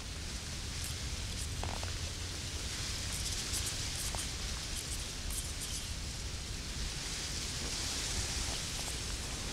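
Steady rustling outdoor hiss over a low rumble, with a few faint high ticks in the middle.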